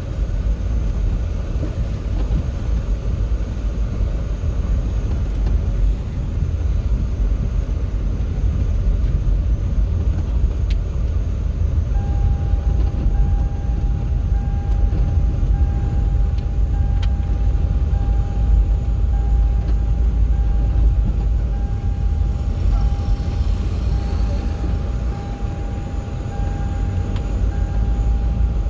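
Steady rumble of a moving vehicle driving along the road. About halfway through, a thin steady high tone comes in and holds.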